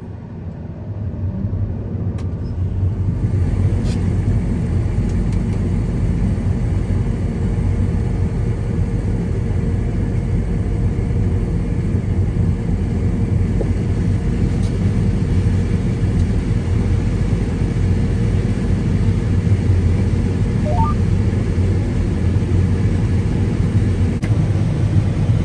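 Combine harvester running, heard from inside the cab: the engine and machinery build up over the first few seconds, then hold a loud, steady low rumble with a steady hum.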